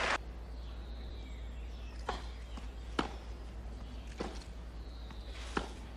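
Tennis rally on clay: about four sharp knocks of the ball off rackets and court, a second or so apart, over a steady low hum.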